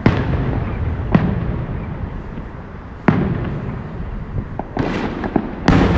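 Aerial firework shells bursting: about five booms a second or two apart, each trailing off in a low rumble.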